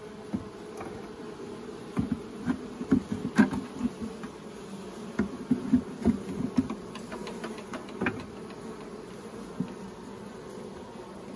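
Honeybee colony buzzing steadily in an open hive, with a run of sharp knocks and scrapes from about two seconds in to about eight: a metal hive tool prying a wooden frame loose before it is lifted.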